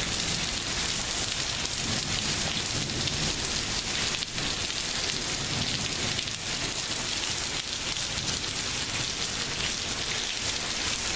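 Heavy rain pouring steadily in a thunderstorm: a dense, even hiss with no distinct thunderclap.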